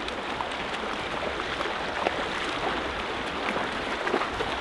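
Shallow river current rushing over rocks in a steady hiss, with small scattered splashes in the water.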